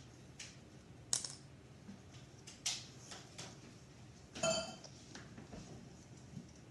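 Small hard plastic pieces being handled and knocked together: a handful of sharp clicks and clinks, the loudest about four and a half seconds in, ringing briefly.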